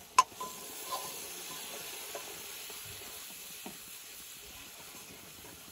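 Vegetable curry sizzling as it cooks in oil, a steady, quiet hiss, with a sharp click just after the start and a couple of faint ticks later.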